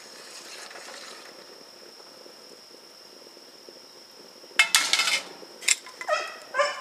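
A spoon scraping faintly as it stirs beans in a large stainless steel stock pot, over a steady high whine. About four and a half seconds in, a dog barks sharply four or five times.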